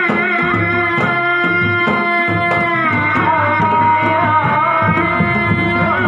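Sundanese reak ensemble playing: dogdog frame drums beaten in a steady interlocking rhythm under a high, wavering melody line.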